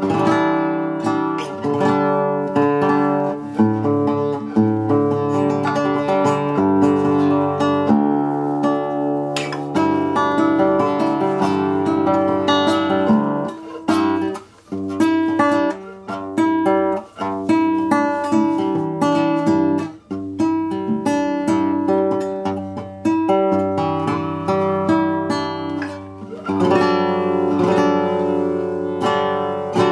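New handmade Russian seven-string acoustic guitar played as a sound test: plucked melody lines and strummed chords, with brief pauses about halfway and two-thirds through.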